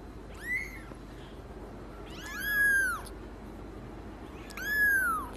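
A kitten meowing three times in high, thin mews, each rising and then falling in pitch: a short one about half a second in, a longer one around the middle and another near the end.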